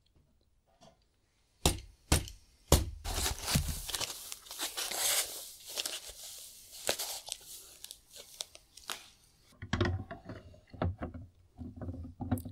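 Crinkling and tearing of packaging as the parts of a plastic hydroponic grow kit are handled, lasting several seconds. A few sharp plastic clicks and knocks come before it, and more come near the end as the parts are fitted together.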